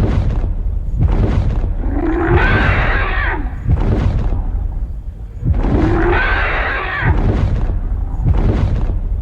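A large animal calling: two loud, drawn-out roaring calls over a constant deep rumble.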